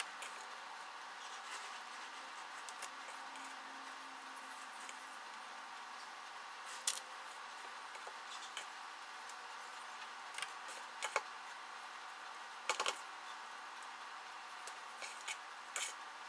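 Quiet hand-work sounds from shaping cookie dough: soft rustles and a few short clicks as dough is pulled from a plastic mixing bowl and pressed onto a parchment-lined baking sheet, over a faint steady hiss. The loudest click comes about seven seconds in, with a quick double click near the end.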